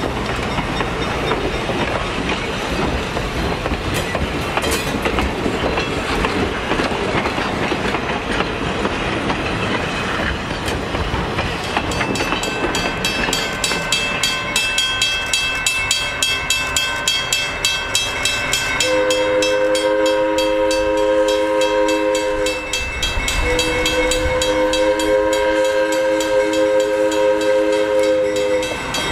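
Passenger cars rolling past with wheel-on-rail noise. Then a grade-crossing bell ringing with a steady pulse, and the diesel locomotive's air horn sounding two long blasts as it approaches the crossing.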